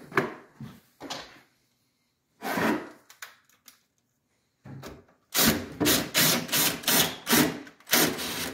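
Cordless drill-driver running a screw through the closet's nailer into a wall stud, in a few short bursts and then a rapid run of short trigger bursts in the last three seconds.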